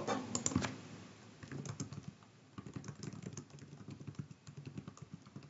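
Faint typing on a computer keyboard: a run of quick, irregular key clicks that starts about a second and a half in.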